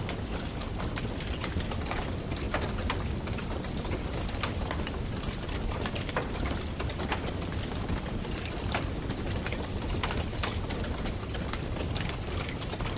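Wood campfire burning, with frequent irregular crackles and sharp pops over a steady low rumble and hiss of the flames.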